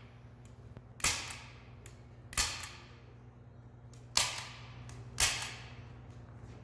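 A hand staple gun firing four times at uneven intervals, each a sharp clack, fastening plastic sheeting to the foam target.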